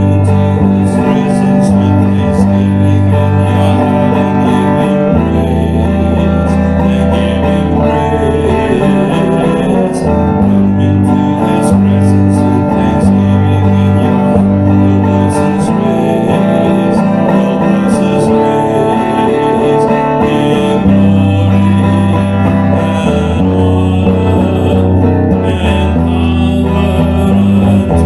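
Electric guitar playing an instrumental worship-chorus melody, picked notes over held low bass notes that change every few seconds.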